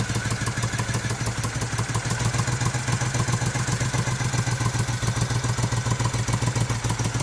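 Moto Guzzi Ambassador's air-cooled V-twin, freshly rebuilt to about 950 cc, idling steadily with an even pulse on its first start after restoration; the new rings leave the engine tight.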